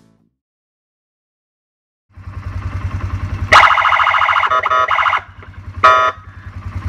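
Near silence for about two seconds, then a Polaris ATV engine idling with a fast, even low pulse. Over it, an electronic siren through a Feniex Triton speaker sounds a loud, steady horn-like tone for about a second and a half, warbling briefly near its end, then a short second blast about a second later.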